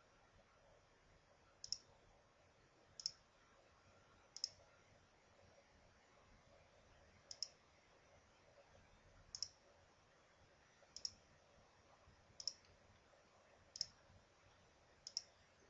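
Computer mouse button clicking, nine sharp clicks, most heard as a quick double snap of press and release, roughly one every second or so with a longer gap after the third.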